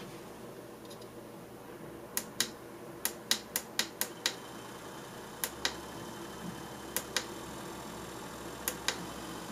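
Sharp clicks of the tactile push buttons on a small motor-controller board, mostly in pairs, with a quick run of six about three to four seconds in. A faint steady hum runs underneath from the small motor turning the 3D-printed Archimedes screw pump.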